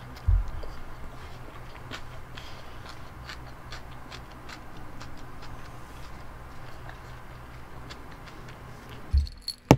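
Quiet eating at a table: scattered faint clicks and taps from mouth and utensils over a low steady hum, with a bump just after the start and a sharp click near the end.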